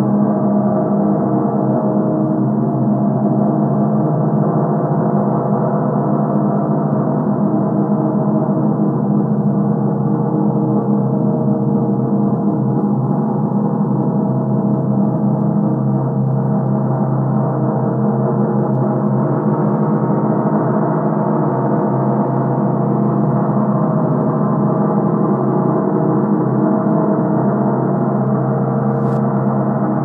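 A gong played in reverse: a dense, steady wash of many overlapping ringing tones, with no distinct strikes.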